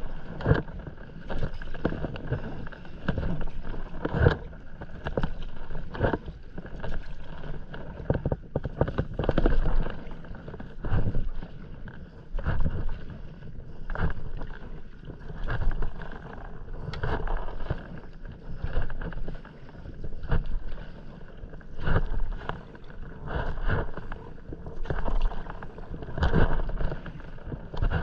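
Stand-up paddleboard paddle strokes in calm seawater: the blade dips and pulls through the water in a steady rhythm, with a swell of water noise about every second and a half.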